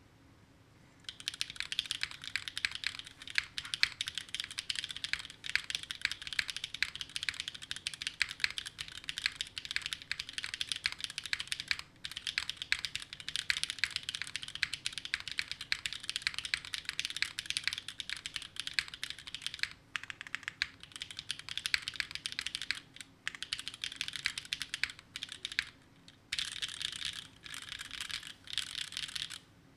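Mechanical keyboard typing: a Neo60 Core with stock, unmodded Gateron Sage linear switches on a carbon fibre plate, with GMK keycaps, typed on quickly and steadily. It starts about a second in, with a few short pauses.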